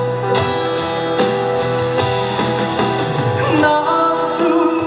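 Trot ballad backing track playing between sung lines: held instrumental notes over a steady bass, with a melody line stepping upward near the end.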